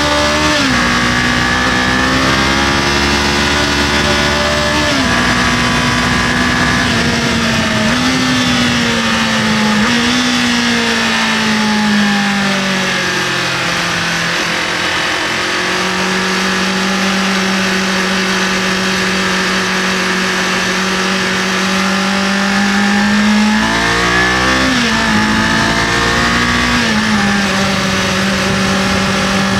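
Kawasaki KLE500's parallel-twin engine running under way, its pitch rising and falling with throttle and gear changes: it winds down through the middle, holds steady, then revs up sharply and drops back near the end. Steady wind rush runs under it.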